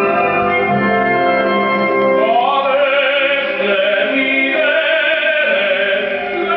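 Classical music playing loudly from a CD over hi-fi loudspeakers: held orchestral chords, with an operatic singer coming in about two seconds in, the voice rising and holding with vibrato.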